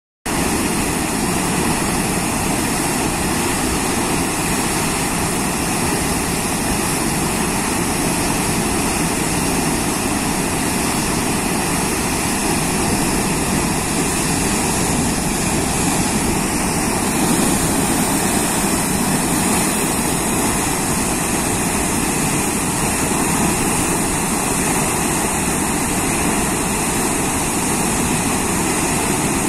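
Brown floodwater of the Brantas River pouring over a rubber dam and churning below it: a loud, steady rush of water.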